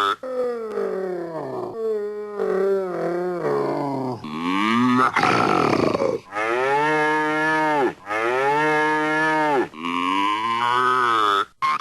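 Vintage Hanna-Barbera cartoon sound effects played one after another: several long, wavering, pitched animal-like calls separated by short gaps, with a noisy falling sweep about halfway through.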